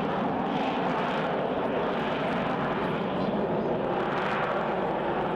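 Fixed-wing aircraft engine running steadily as the aircraft flies a display.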